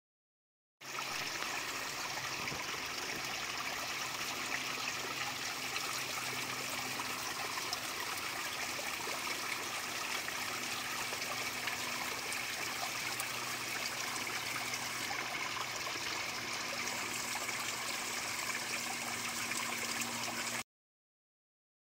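A small woodland stream trickling over rocks, a thin fall of water running past icicles. Steady running water that cuts in about a second in and cuts off abruptly near the end.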